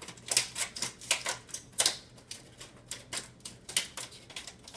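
Plastic blister packaging of a diecast model car being cut open: a fast, irregular run of sharp clicks and crackles.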